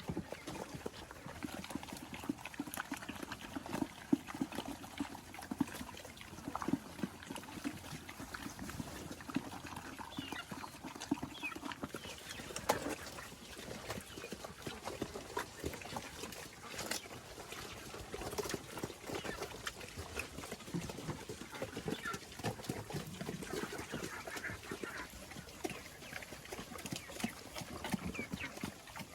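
Free-range pigs grunting and eating, with a steady run of short clicks and wet smacks from chewing and slurping.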